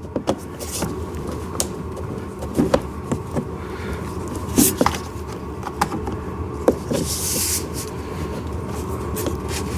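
Scattered clicks and knocks of plastic car-body parts and wire connectors being handled and pushed into place, over a steady background hum, with a short rustle about seven seconds in.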